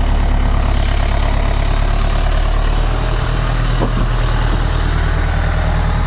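Renault Master van's engine running as the van creeps up close and stops, its low hum steady and changing note about halfway through as it settles to idle.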